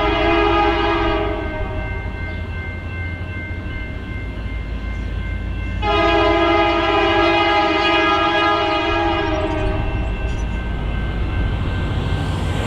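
Diesel locomotive air horn blowing a chord, with one blast ending about a second in and a second long blast from about six seconds in to about ten seconds, over the locomotive's steady low rumble.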